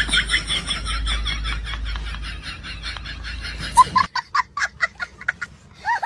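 A high-pitched cackling laugh, about six pulses a second, that breaks about two-thirds of the way in into shorter separate cackles.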